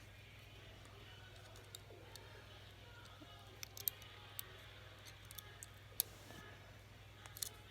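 Lock pick and tension wrench working the wafers of a one-sided Corbin wafer padlock: scattered light metallic clicks, the sharpest about six seconds in, over a low steady hum.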